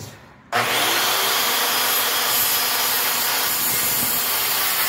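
Circular saw starting up about half a second in and cutting through a wooden post: a loud, steady cutting noise with a motor whine underneath.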